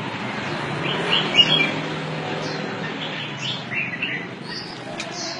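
Birds chirping: short, high-pitched chirps repeated every second or so over steady background noise.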